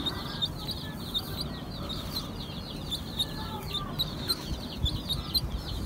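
Baby chick peeping: a steady run of short, high, falling cheeps, several a second.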